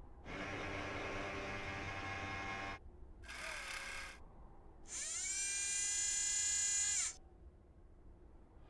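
Three bursts of small electric motor whirring, the sound effects for the Curiosity rover's moving mechanisms. The middle one is short, and the last is the loudest: it rises in pitch as it spins up, then holds steady for about two seconds.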